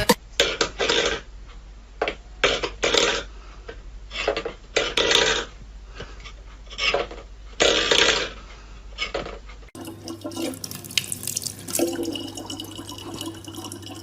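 Water splashing and sloshing in irregular bursts, then, after a cut about ten seconds in, a tap running steadily.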